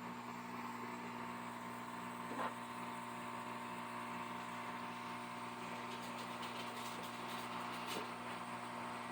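Hot-air rework gear blowing steadily while heating a circuit board: an even fan hiss over a low electrical hum. There is a faint tick about two and a half seconds in.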